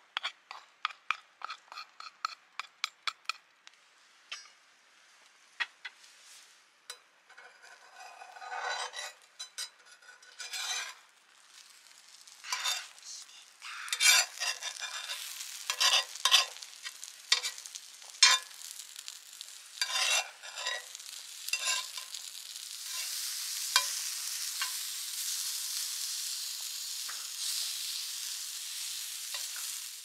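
Egg frying on a cast-iron round griddle, with a metal spatula scraping and knocking on the iron as the egg is turned and folded. Over roughly the last third a steady sizzle takes over.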